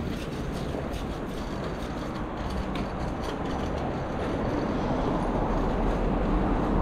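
Steady rumble of a passing vehicle on a city street, growing louder over the last couple of seconds, with scattered light clicks.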